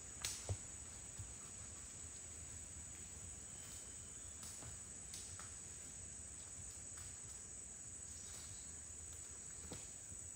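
Steady high-pitched chorus of insects droning without a break, with a couple of faint knocks about half a second in.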